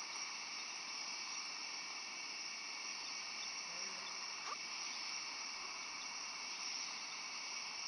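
A steady, faint hiss with no distinct events in it.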